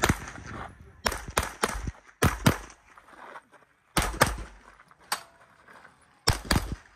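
Competition handgun firing rapid shots, mostly in pairs about a quarter second apart, with pauses of a second or more between the pairs as the shooter engages one target after another.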